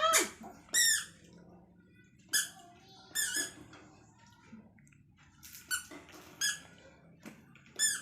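Toddler's squeaky sandals chirping with each step as the child learns to walk: about seven short, high squeaks at an uneven pace.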